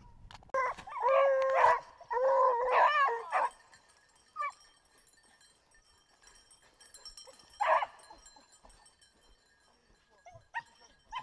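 Young Griffon Bleu de Gascogne hounds baying: two long, wavering bays in the first few seconds, then a few short, single yelps spaced out.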